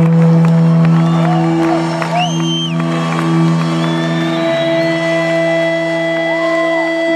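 Rock band's amplified instruments holding one long sustained note that rings on, with a second higher tone coming in about four and a half seconds in, while the crowd whistles and whoops over it.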